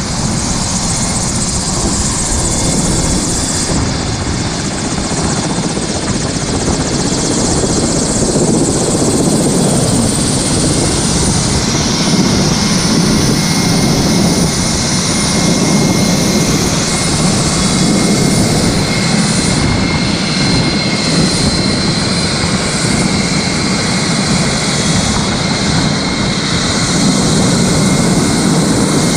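Air ambulance helicopter running close by, a steady loud rotor chop over engine and turbine noise.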